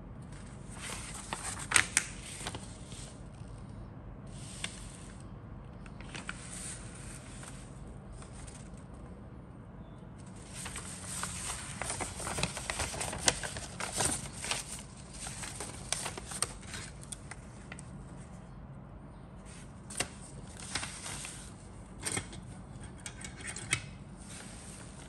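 Paper instruction sheet rustling and crinkling as it is handled and folded, in irregular bursts with sharp crackles; the loudest crackles come about two seconds in and a long stretch of rustling runs from about ten to eighteen seconds in. A low steady hum sits underneath.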